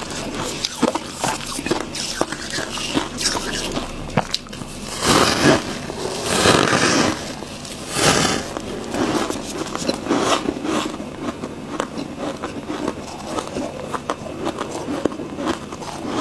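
Freezer frost being bitten and chewed: a run of crisp crunches and crackles, with three louder, longer crunching stretches a third of the way in, around the middle, and just after.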